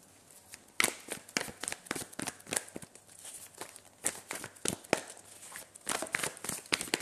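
Tarot cards being shuffled and handled: an irregular run of light, crisp card flicks and taps.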